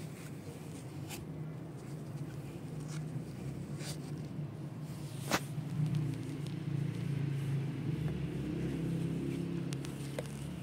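Kittens purring close to the microphone: a steady low rumble that strengthens about halfway through. A few sharp clicks cut across it, the loudest about five seconds in.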